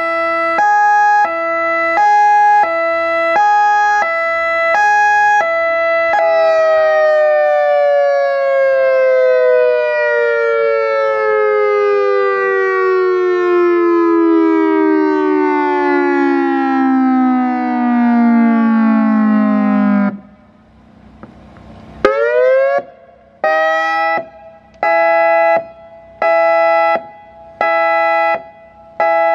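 EOWS 612 electronic outdoor warning siren sounding through its large horn loudspeakers, run from a custom controller through its signals. First comes a two-tone hi-lo warble. Then a long, slow falling tone like a mechanical siren winding down, a brief pause, a quick rising whoop, and a steady tone pulsed on and off about once a second.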